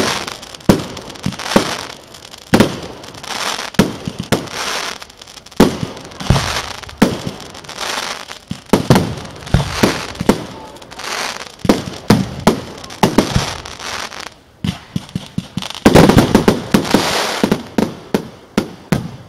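Aerial firework shells bursting in a professional display: a steady run of sharp bangs, each trailing off in a hiss, building to a dense barrage of bangs near the end.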